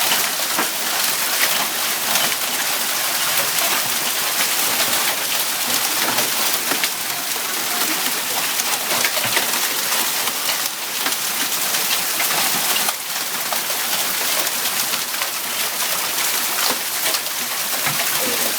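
Hail and rain pelting down together, a steady dense hiss with countless small sharp hits landing on hard surfaces.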